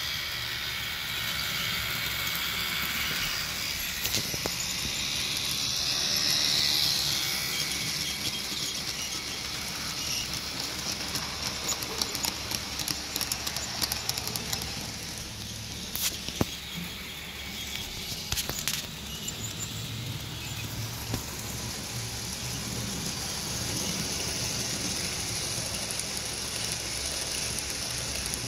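Model trains running on the track: a steady electric-motor hum and rolling wheel noise from the diesel locomotives and freight wagons, with a few sharp clicks.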